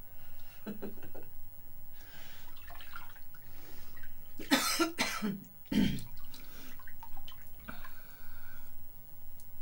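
Woman moving about in a bathtub: bath water sloshing, with a few short, loud sounds about halfway through.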